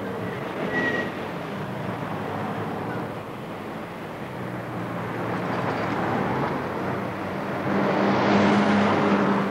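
A motor vehicle engine running steadily with a low hum, growing louder near the end.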